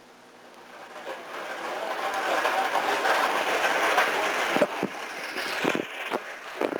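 A vehicle going by, its noise building over a few seconds and then falling away, with a few short knocks near the end.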